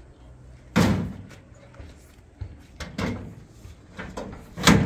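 A series of sharp knocks or bangs of something hard, about four in all. The two loudest come about a second in and near the end, the first with a brief ringing after it.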